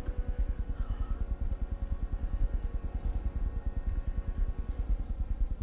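A low, steady rumble with a fast, even pulse, like a motor or engine running.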